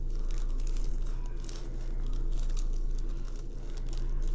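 Small plastic packets of diamond-painting crystals crinkling and rustling as they are handled and sorted, over a steady low electrical hum.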